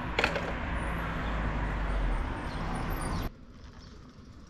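Steady street traffic noise with a low rumble and a single click near the start, cutting off suddenly about three seconds in and leaving a much quieter background.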